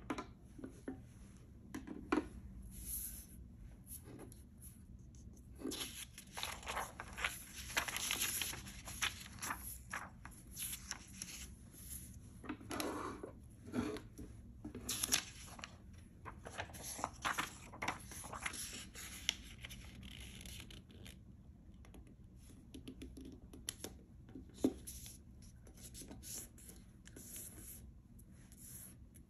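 Sheets of paper handled on a wooden tabletop: sliding, rustling and creasing, with small sharp taps and clicks. The sound is busiest from about six to twenty seconds in.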